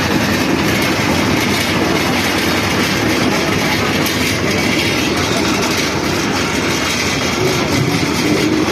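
Loud, steady mechanical clatter and rattling from running construction machinery.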